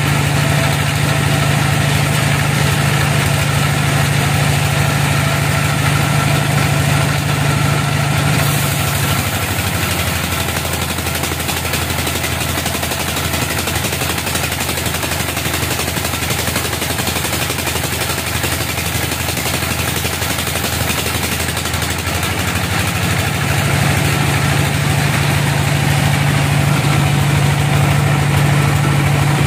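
Homemade band sawmill running, its blade cutting through a large gmelina log with a steady engine hum. For a stretch in the middle the hum weakens and a high hiss of sawing comes up, and near the end the hum returns.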